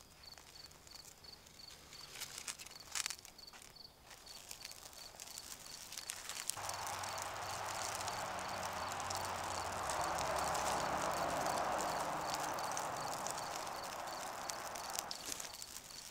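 An insect chirping steadily about twice a second, with a few faint crunching steps early on. About six seconds in a rushing noise comes in suddenly, swells and fades near the end.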